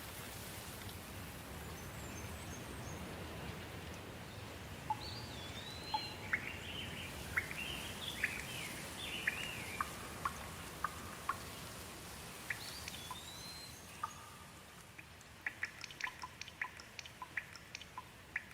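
Steady rain with birds calling over it: a couple of rising-and-falling whistles and a run of short chirps. Later the rain eases, and a quick series of sharp ticks follows near the end.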